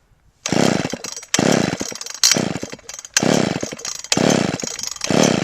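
Old Wizard two-stroke chainsaw being pull-started: about five quick pulls on the starter cord, roughly one a second, with the engine cranking but not catching. The owner says it keeps flooding, the spark plug coming out soaking wet.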